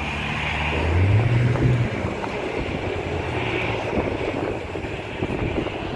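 Engine noise: a low engine hum that rises in pitch about a second in and eases off after about two seconds, over a steady hiss.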